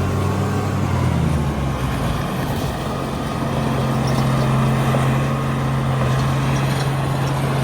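Heavy diesel earthmoving engine running. Its note changes about two seconds in, then holds steady.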